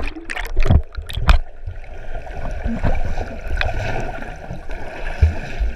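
Water gurgling and sloshing, with a couple of sharp knocks in the first second and a half.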